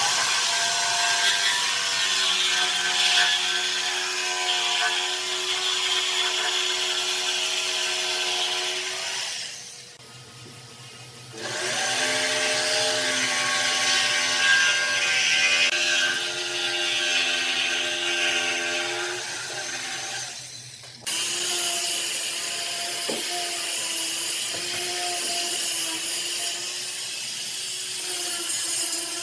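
Electric power tool running and cutting wood: a steady motor whine over rasping cutting noise. It drops away briefly about a third of the way through, then resumes, and changes abruptly about two-thirds of the way through.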